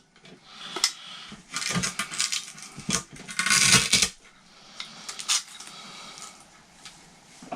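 Guitar effects pedals and hook-and-loop Velcro being handled on a pedalboard: scattered clicks and knocks of the pedal casings, with two rasping bursts of about a second each as Velcro is pulled apart, then quieter handling.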